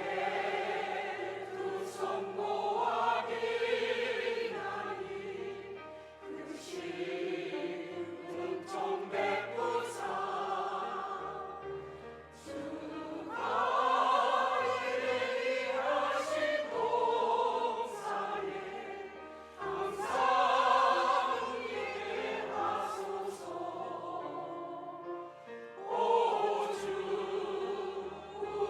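Church choir singing a hymn in long phrases that swell and ease, over a low sustained accompaniment.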